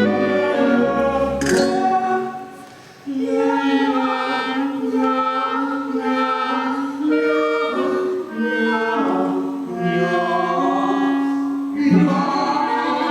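A song: singing in long held notes over instrumental accompaniment, the music dropping briefly about two seconds in before the voice resumes.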